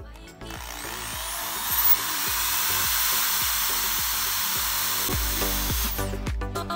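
Electric drill with a number 8 bit running steadily as it bores through a bucket wall, stopping near the end. Background music plays underneath.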